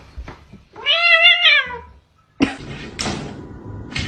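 A cat meowing once, a long wavering meow of about a second, starting about a second in. It cuts off into a moment of silence, followed by a few sharp knocks and clatter.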